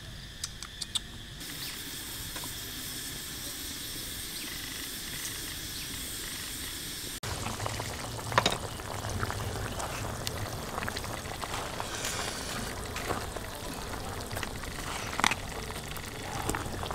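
Chicken pieces with lemongrass and chilies boiling in broth in a wok over a wood fire, a steady bubbling hiss. The sound changes suddenly about seven seconds in and becomes louder and fuller, with a few sharp clicks.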